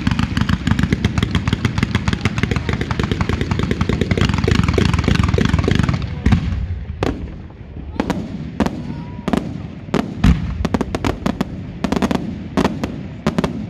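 Fireworks display finale: a dense, rapid crackling volley of fanned comet shots fired from ground racks for about the first six seconds. After that come separate, louder bangs of aerial shells bursting, with an occasional short whistle.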